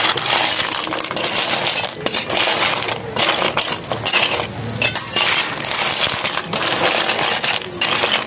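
Sea snail shells clattering and clinking against a metal wok and against each other while a metal spatula stirs them. The spatula scrapes the pan, and the clatter eases off briefly a few times.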